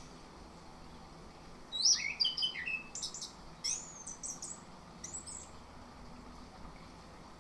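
Orange-headed thrush singing: one phrase of quick, varied whistled notes, many of them rising glides, starting about two seconds in and lasting about three and a half seconds, loudest at its start.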